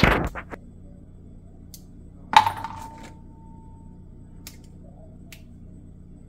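One sharp metallic clink of kitchenware about two and a half seconds in, ringing with a clear single tone that fades over a second or so. A steady low hum underneath, with a few faint light ticks.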